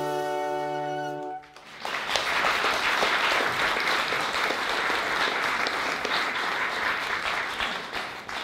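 An orchestra holds its final chord, which stops about a second and a half in. Audience applause follows and begins to fade near the end.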